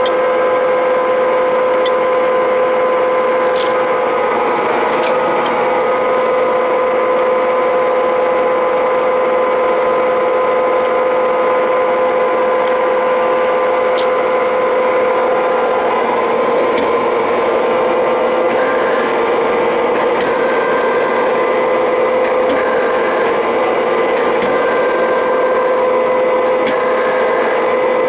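Clausing Boravia SUS63H2000 engine lathe running under power, a steady whine with a few faint ticks.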